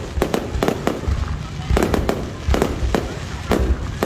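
Aerial fireworks display: a rapid, irregular run of bangs and crackles, several a second, over a low rumble.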